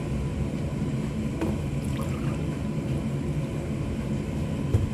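Orange juice poured from a plastic bottle into a ceramic mug, faint against a steady low rumble, with a short knock near the end.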